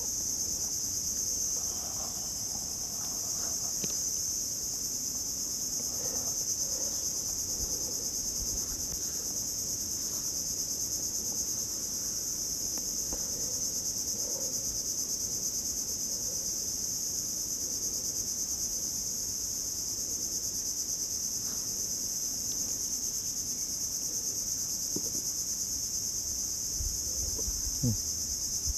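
Steady, high-pitched chorus of insects shrilling without a break, with faint knocks and handling noises underneath.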